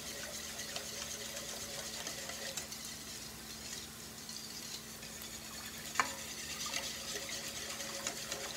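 Wire whisk stirring a thin soup mixture in a stainless steel bowl, with quick light clinks of the wires against the metal, over the soft sizzle of rice frying in the skillet beneath. One sharper clink about six seconds in.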